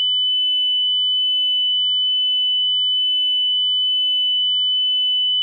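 Steady 3 kHz sine test tone from a hi-fi test recording, used to check a turntable for wow and flutter. It holds a constant pitch and level.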